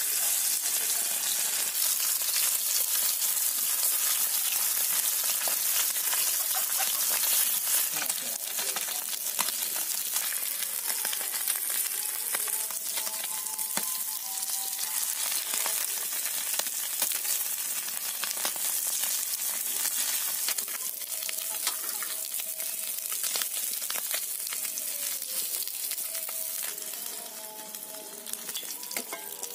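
Small fish deep-frying in hot oil in an iron kadai, sizzling and spattering steadily, with a metal spatula clinking and scraping against the pan as the fish are turned. The sizzle eases off a little near the end.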